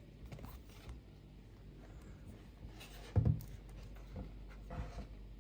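Cardboard box-set packaging being handled and slid about, with light rubbing and scraping, and one short thump about three seconds in.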